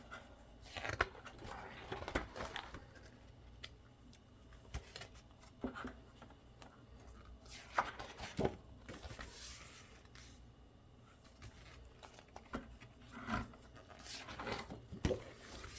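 Paper planner pages being turned and handled, with scattered soft rustles and light taps and a longer page swish about nine seconds in.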